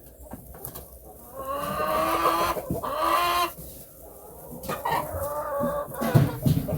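A rooster crowing once, a long drawn-out call of about two seconds, followed near the end by a shorter call from the chickens.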